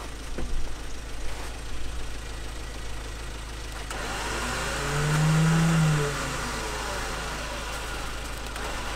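Ford Ranger pickup's engine running, rising in revs and falling back once about five seconds in as the truck is driven out of the snow.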